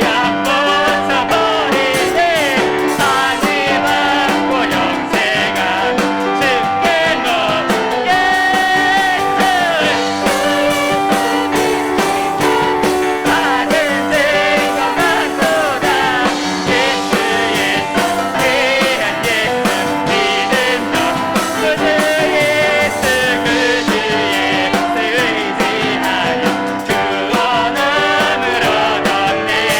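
Live contemporary worship music: a praise team singing a worship song, accompanied by piano and drums.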